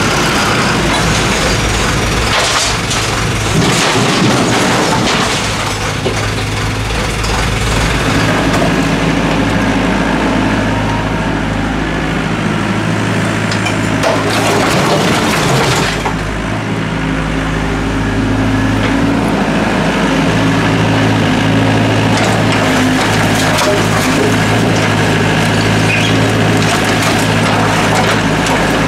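Doosan DX55W wheeled mini excavator working, its diesel engine running steadily. Brick and concrete rubble crashes and clatters in bursts as the bucket dumps loads into a steel dump-truck bed and digs through demolition debris.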